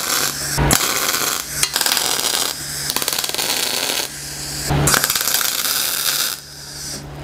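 Electric arc welding: the arc's steady crackling sizzle, breaking off briefly several times, over a low steady hum.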